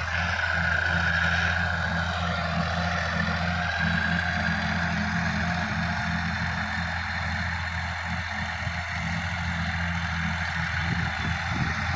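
Sonalika DI-50 RX tractor's diesel engine running steadily under load, with the rear rotary tiller churning the soil.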